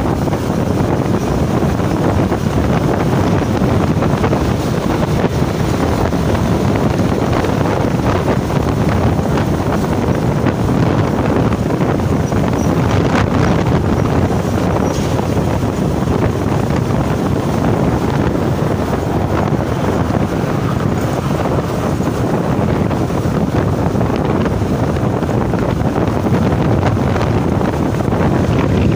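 Wind buffeting the microphone of a camera on a motorcycle moving at highway speed: a loud, steady rush that drowns out everything else.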